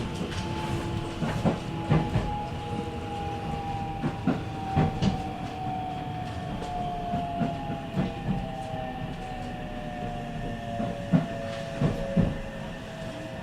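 JR 313 series electric train running, its IGBT VVVF inverter and traction motors giving a whine that falls slowly in pitch as the train slows, with wheels clacking over rail joints. The falling whine fits braking on the approach to a station.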